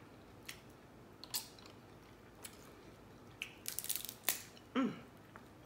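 Scattered small clicks and crackles of seasoned blue crab shells being picked apart and eaten, with a quicker run of cracks about three and a half seconds in.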